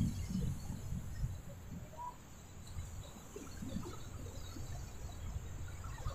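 Wind buffeting the microphone in uneven low rumbles, over the faint wash of choppy waves breaking on a rubble-strewn shore.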